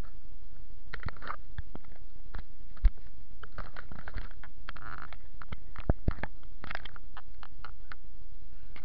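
Handling noise from a handheld camera rubbed and bumped against fabric and fingers. Irregular clicks and soft rustles play over a steady hiss, with one sharper knock about three seconds in.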